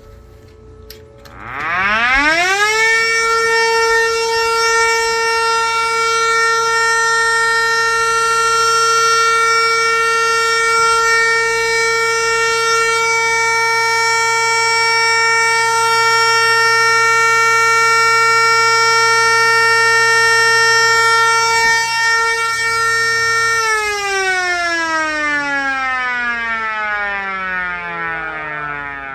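Mini Model 7 tornado siren winding up over about two seconds to a loud, steady alert tone. It holds the tone for about twenty seconds, then winds down with falling pitch. A low hum runs beneath the steady tone and cuts out as the wind-down begins.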